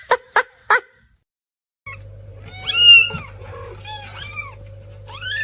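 A domestic cat meowing: several short calls that rise and fall in pitch, the loudest about three seconds in and another near the end. Three sharp taps come before them near the start, and a steady electrical-sounding hum runs under the meows.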